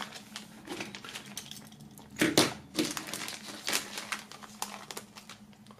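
Clear plastic bag crinkling and rustling in irregular bursts as hands handle it and put small toy ammunition back inside; the loudest crinkle comes a little over two seconds in.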